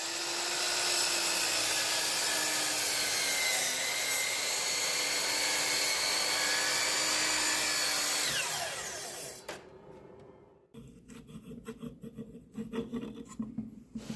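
Wood lathe spinning a poplar bowl blank while a tool scrapes and rubs the wood, a steady loud hiss with a constant motor hum. About eight and a half seconds in, the hum slides down in pitch as the lathe spins down, followed by quieter irregular scraping and knocks.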